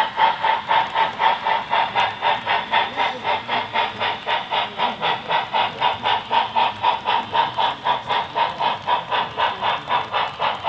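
Model freight train running past, with a steady, even rhythmic beat of about four pulses a second.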